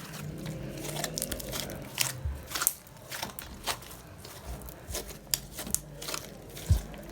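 Clear slime being stirred, giving irregular sticky clicks and pops, with a few louder snaps.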